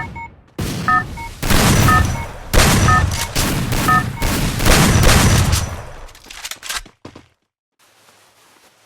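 Video game gunfire: bursts of rapid automatic shots, with short high beeps among them. The firing stops about seven seconds in.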